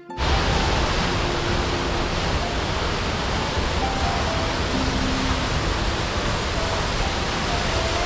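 Steady rushing water, like a waterfall or fast mountain stream, cutting in abruptly and running as an even roar. Soft music notes sound faintly beneath it.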